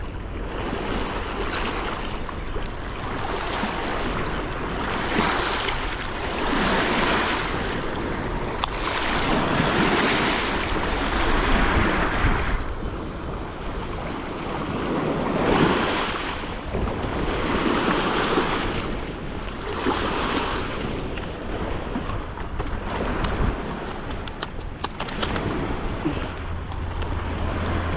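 Small river waves washing onto a rocky shore, swelling and falling every two to three seconds, with wind on the microphone.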